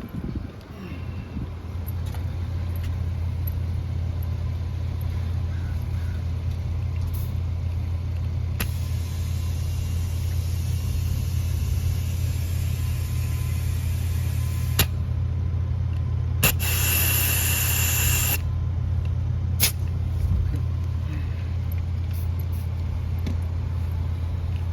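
Steady low hum of an idling vehicle engine, with compressed air hissing into a tire through its valve as the pressure is topped up. There is one long hiss of about six seconds, then a shorter, louder hiss about seventeen seconds in, each starting and ending with a sharp click.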